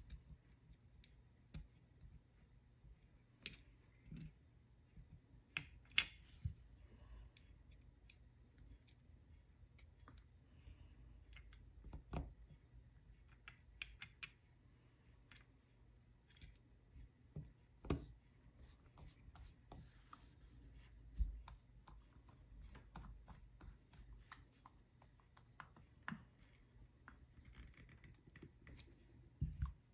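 Light, scattered clicks and taps of small metal and plastic carburetor parts being handled and fitted together by hand, with a few sharper taps among them and a screwdriver working a small screw near the end.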